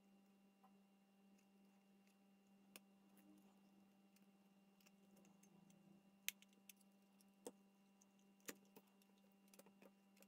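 Near silence with a few faint, sparse clicks and taps of the small plastic-and-metal cassette Walkman's case and circuit board being handled and fitted together, the sharpest a little past the middle, over a faint steady hum.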